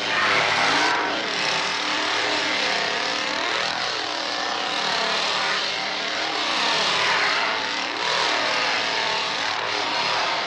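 Chainsaw engine revving up and down, its pitch rising and falling over and over.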